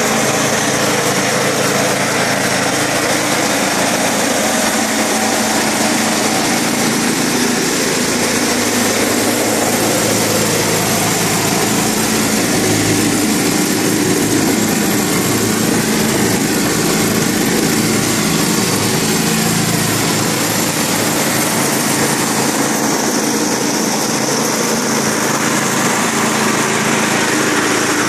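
Toro Power Shift 1028 snowblower's engine running steadily.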